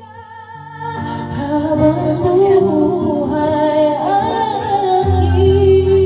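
A woman singing into a corded handheld microphone, holding long notes over an instrumental accompaniment; the singing grows louder about a second in.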